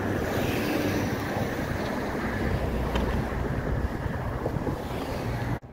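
Wind buffeting the microphone: a loud, fluctuating rumble and rush with no distinct events, cut off abruptly near the end.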